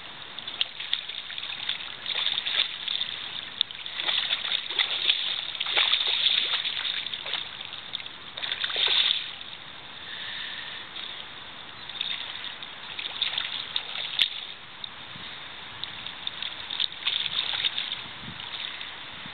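Hooked Atlantic salmon (a spring-run springer) splashing at the surface of a river, in irregular bursts of splashing over the steady wash of the water.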